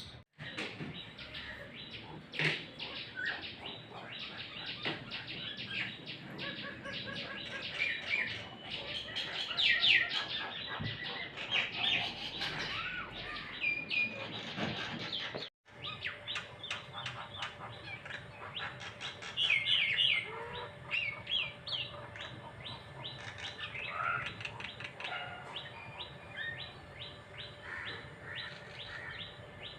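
Many birds chirping and calling together, a dense chatter of rapid short chirps with some whistled notes. The sound cuts out suddenly for a moment about 15 seconds in.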